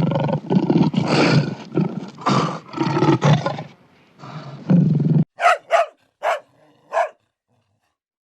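A large animal's deep, rough roars and growls for about five seconds, then a dog barking five times in quick succession.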